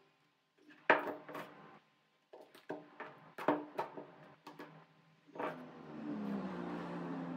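Hands wrapping plastic tape around a curved wooden form on a wooden workbench: a string of short knocks, taps and crinkles, the loudest about a second in. Background music comes back in about five and a half seconds in.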